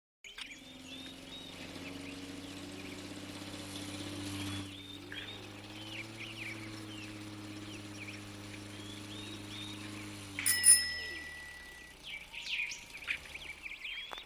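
Birds chirping, with many short calls, over a steady low hum that fades away near the end. A single sharp, ringing hit comes about ten seconds in and is the loudest sound.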